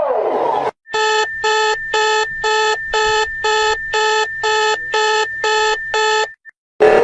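Electronic emergency-alert alarm: a falling sweep tone ends, then a rapid series of eleven beeps, about two a second, over a steady high tone. It stops abruptly, and a new rising tone begins near the end.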